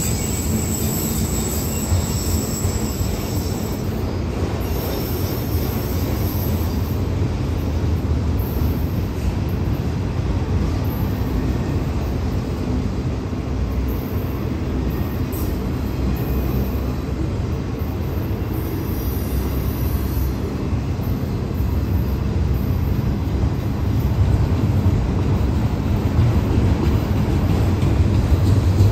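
Autorack freight cars rolling past: a steady rumble of steel wheels on the rails, with a thin high wheel squeal that fades out over the first few seconds.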